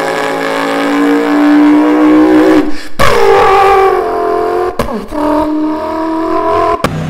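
A man's vocal imitation of car engines revving, made with his mouth against a paper towel roll. There is one long note that slowly rises in pitch. After a short break comes a higher note that glides down and holds, then a third held note that cuts off suddenly near the end.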